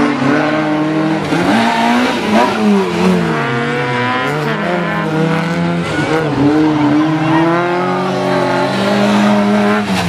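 Rally car engine revving hard through a bend, its pitch repeatedly rising and falling with throttle and gear changes as the car passes close by.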